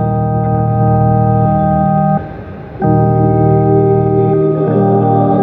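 Organ playing held chords, which break off briefly a little after two seconds and then resume, with the harmony changing again near the end.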